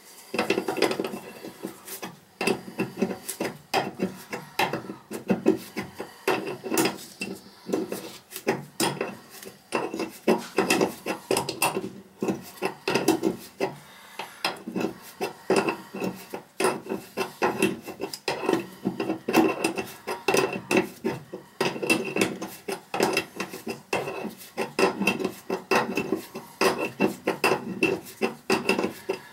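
Hand tool scraping and clicking against the metal shut-off valve and water supply line fitting under a toilet tank, in a quick, uneven run of rasping strokes and clicks.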